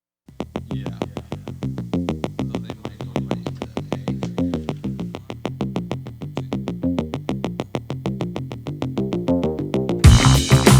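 Electronic background music: a quick run of short synthesizer notes at an even pulse, with a fuller, louder beat coming in near the end.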